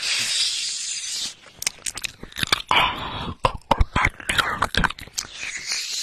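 Close-miked mouth sounds: about a second of breathy hissing, then a quick, irregular run of wet clicks and smacks of lips and tongue against the microphone.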